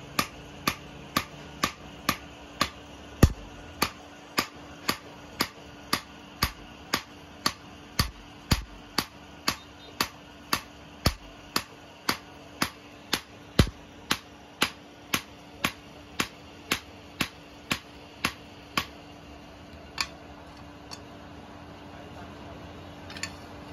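Hand hammer striking a flat steel blade on a small anvil: sharp, ringing metal-on-metal blows at about two a second, a few landing heavier, stopping about three-quarters of the way through with one last blow after.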